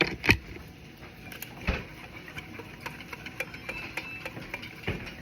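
Kitchen utensils and dishes knocking and clicking: a couple of sharp knocks near the start, then a run of faint, irregular ticks.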